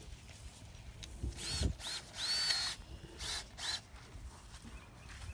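Power drill run in about four short bursts, its motor whine rising as the trigger is squeezed and falling as it is let go, the longest burst about half a second, while drilling pilot holes in the wooden boards of a raised garden bed. A few low knocks from handling come in the first bursts.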